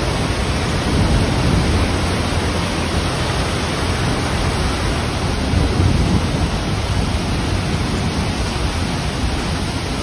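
Torrential rain pouring down in a thunderstorm: a steady, dense rush of rain with a low rumble underneath.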